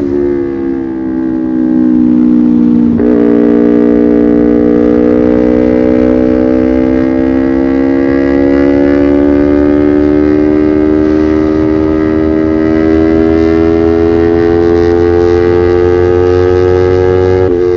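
Kawasaki Ninja 250R carburetted parallel-twin engine running through an SC Project aftermarket exhaust, its note climbing slowly and steadily as the bike pulls. There is a brief dip in the note about three seconds in and another near the end.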